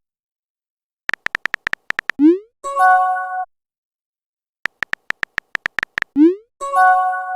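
Chat-app sound effects, twice: a run of quick keyboard-typing clicks, then a short rising pop and a brief chime as the message is sent.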